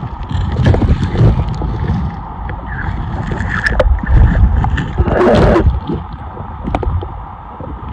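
Water sloshing and gurgling, with a louder splash about five seconds in, over a steady low rumble.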